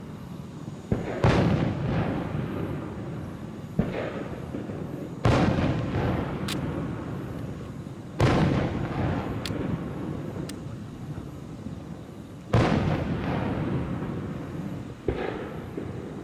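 Aerial fireworks shells bursting one after another, about seven loud booms a few seconds apart, each trailing off in a long rolling rumble. A few short sharp cracks sound in between.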